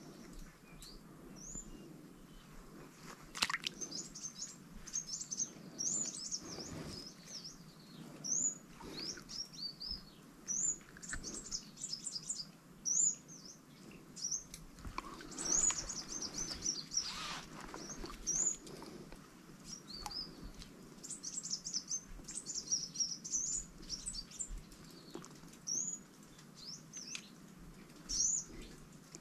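Small birds chirping, with many short high calls and quick trills, and a sharp click about three and a half seconds in.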